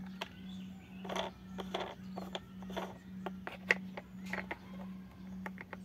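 Hard plastic toy-train parts clicking and knocking irregularly as a plastic wheel is handled and pushed onto the toy's axle peg, over a steady low hum. The sharpest click comes a little past halfway.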